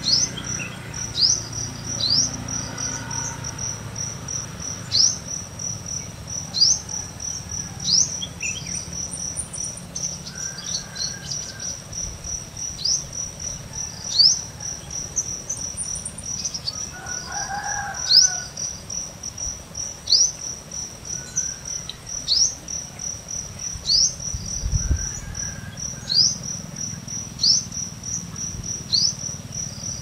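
Garden insect chorus: a steady, high, pulsing cricket-like trill, with short falling chirps repeated every second or two and a few faint, distant bird calls, one stronger call near the middle.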